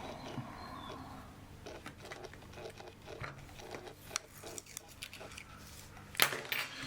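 Small clicks, taps and rustles of tweezers and backing tape on a camera's screen assembly being worked by hand, with one sharper click about six seconds in.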